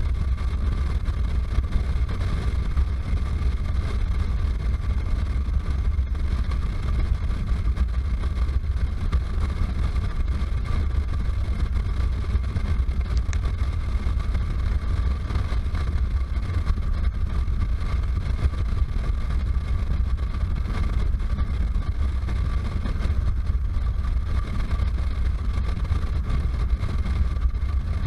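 Motorcycle cruising at road speed, its engine and the wind rushing over a helmet-mounted camera blending into a steady low rumble, with a thin steady whine above it.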